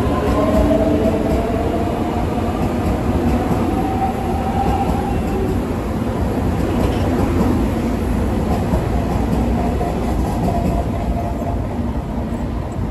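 JR Kyushu 883 series electric train pulling out and passing close by: rolling wheel-and-rail rumble with a motor whine that climbs in pitch as it gathers speed. The sound eases slightly near the end as the last car goes by.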